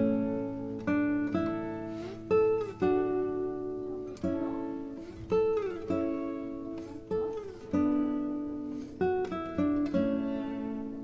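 Background music on acoustic guitar: plucked notes and chords, each fading after it is struck, with a few notes sliding in pitch.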